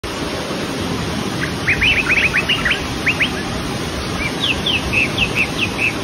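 Whitewater river rushing over boulders, a steady noise, with a small bird singing over it: a quick run of short chirps from about a second and a half in, then a slower series of falling notes in the second half.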